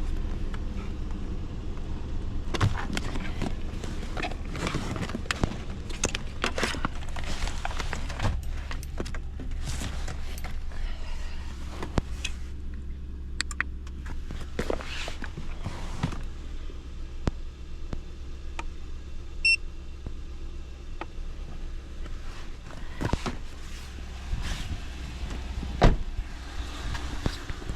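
Steady low rumble of a vehicle cabin, with scattered clicks and knocks, likely from handling things inside it.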